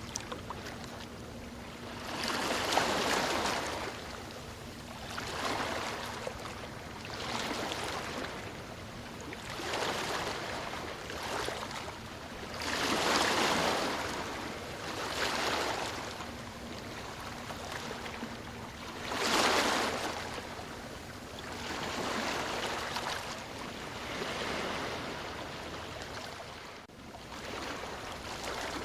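Ocean waves breaking and washing on a shore, the surf swelling and falling again every two to three seconds, with the biggest breakers about three, thirteen and nineteen seconds in.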